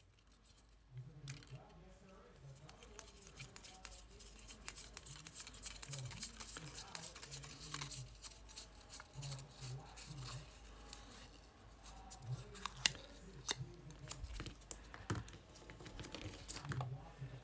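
Card stock being wound tight on a slotted quilling tool, giving dry paper rustling and crinkling with many small clicks and scrapes.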